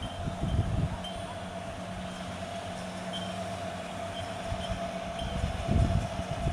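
A steady mechanical hum with a thin higher whine, with two low rumbling surges, about half a second in and again near the end.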